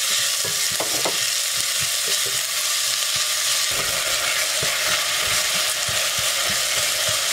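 Diced red onion sizzling steadily in hot olive oil in a stainless steel pot as it is sautéed to brown, stirred with a spoon that knocks softly against the pot now and then.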